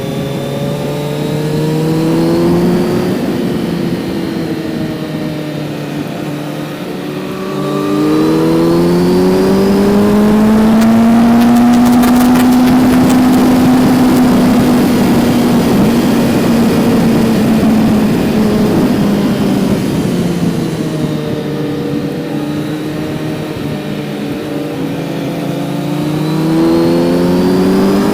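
Kawasaki Z900's inline-four engine under way. About eight seconds in it pulls up through the revs and holds high for several seconds, then slowly winds down as the throttle eases. It picks up again near the end.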